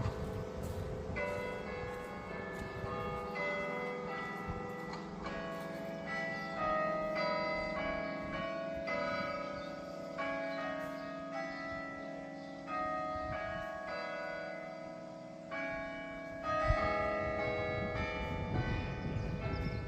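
Church bells of the Priory Church of St George, Dunster, ringing at one o'clock: a continuous run of overlapping bell strikes at changing pitches, each note ringing on under the next.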